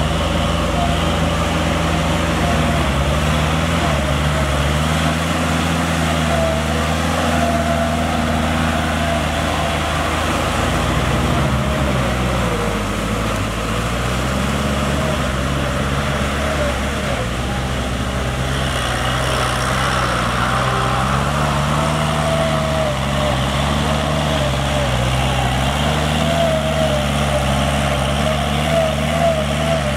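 Kubota L5018 tractor's diesel engine running under load, its pitch slowly rising and falling as it works, with the rotary tiller churning through flooded paddy mud.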